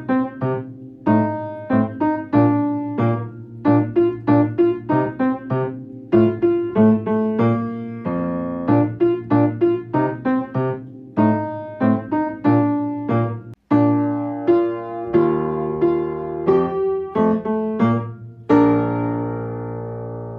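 Piano playing a bright, steady run of notes and chords, ending on a held chord that rings and fades away near the end.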